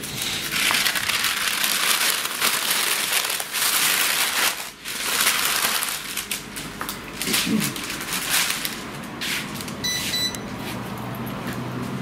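Plastic bag crinkling and rustling as it is handled, a dense run of crackles, with a short electronic beep about ten seconds in.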